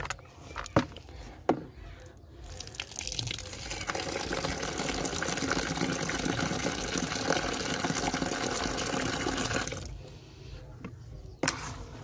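Water from a tap pouring into a metal bucket of horse bran feed to soak it into a mash, starting a few seconds in, running steadily for about six seconds and then stopping. A spoon knocks and scrapes in the bucket as the feed is stirred before and after.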